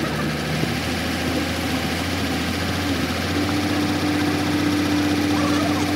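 An engine idling steadily, with a steady higher-pitched hum joining about halfway through.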